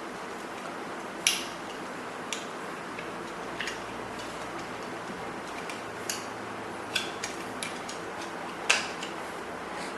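Irregular sharp clicks and ticks of hand tools on the metal axle bolt and nut of a suitcase roller wheel as the nut is screwed on and tightened, the strongest a little over a second in and again near the end.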